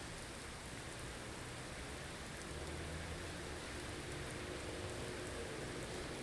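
Steady blizzard wind with a hiss of blowing snow, and a low drone underneath that grows slightly stronger about two and a half seconds in.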